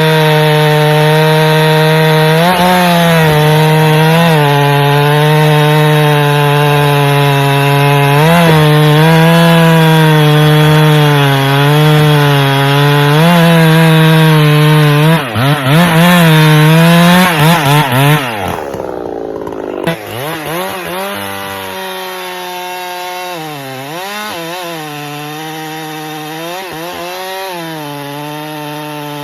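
Chainsaw running at full throttle, cutting wood, its pitch dipping briefly every couple of seconds as the chain bites. About two-thirds of the way through it winds down with a falling pitch, and the chainsaw sound carries on much quieter, still at cutting speed.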